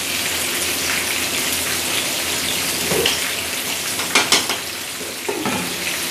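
Steady sizzling of food cooking in a hot pan, with two sharp clinks a little after four seconds as a glass lid is set down on the pan.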